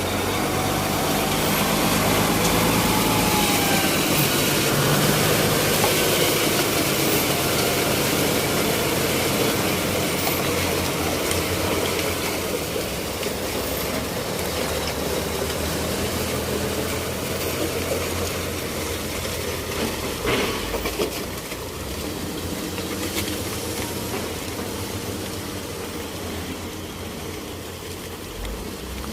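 Heavy diesel engine of a logging truck running, its note shifting now and then, with a sharp knock about two-thirds of the way through.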